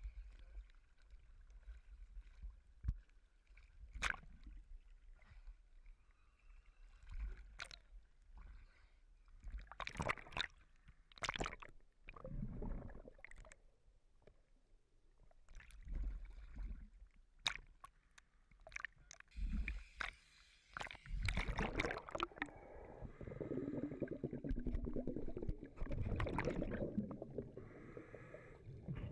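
Water sloshing and gurgling around a dive camera, with scattered knocks and short bursts of splashing and bubbling, heaviest in the last third.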